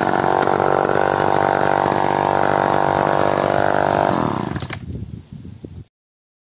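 Homelite Super XL two-stroke chainsaw revving steadily at high speed with the bar held clear of the wood. About four seconds in the throttle is released and the revs fall away, with a sharp click, before the sound cuts off suddenly.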